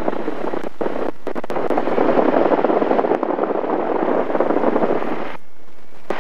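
Light single-engine airplane's engine and propeller noise while taxiing, heard through the headset intercom as a coarse rushing noise. It drops out briefly twice about a second in, and again for most of a second near the end.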